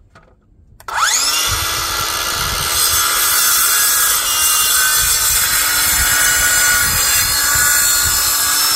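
Craftsman V20 brushless 7-1/4-inch cordless circular saw with a 24-tooth blade, spinning up with a rising whine about a second in, then cutting steadily through a 2x4.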